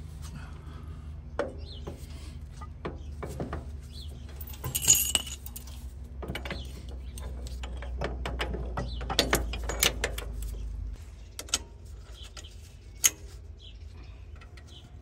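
Heavy steel tractor drawbar parts and a steel pin clinking and knocking against each other and the drawbar mount as they are fitted by hand, with a loud cluster of clinks about five seconds in. A low steady rumble underneath stops suddenly about eleven seconds in.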